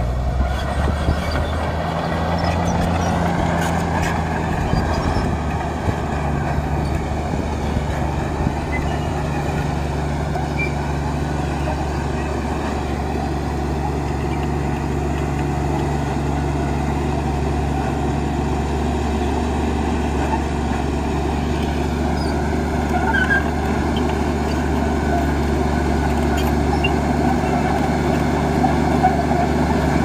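Heavy diesel engines of earthmoving machinery running steadily, their pitch shifting slightly now and then.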